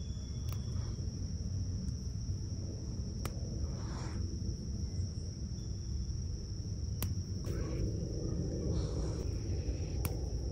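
A steady, high insect trill, over a low rumbling background. A few soft rustles and faint clicks come from lavender stems being stripped by hand.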